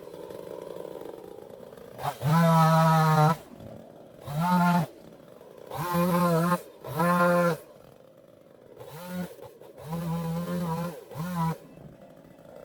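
Two-stroke chainsaw revved to full throttle in about seven short bursts, dropping back to idle between them.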